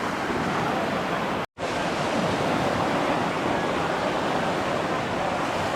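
Steady wash of small Gulf of Mexico waves breaking on a sandy beach, with the sound cutting out completely for a split second about one and a half seconds in.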